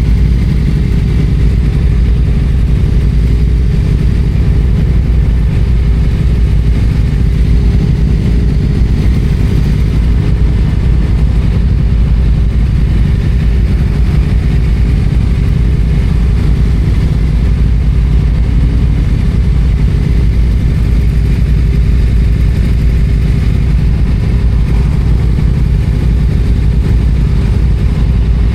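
Yamaha FZ-07's parallel-twin engine running at a steady pace while riding, with little change in pitch and a heavy low rumble.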